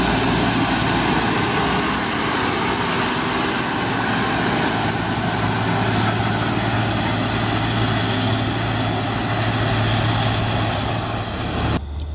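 Heavy diesel dump truck with tandem rear axles driving past close by and pulling away: a loud, steady engine and tyre noise, with the low engine hum strongest in the second half. The sound cuts off abruptly near the end.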